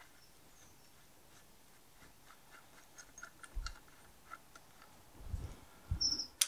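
Faint small metallic clicks and taps of fingers working at parts inside a cast-iron tractor final drive housing, with a dull knock partway through. Near the end come a few heavier handling knocks and one sharp click as tools are picked up.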